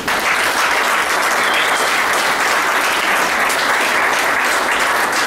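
An audience of several dozen people applauding, steady and loud.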